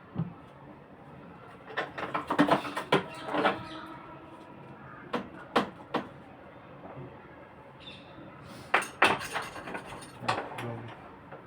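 Hard tools and metal parts clinking and knocking as they are handled during repair work, in three bursts of sharp knocks: around two to three seconds in, around five to six seconds, and around nine to ten seconds.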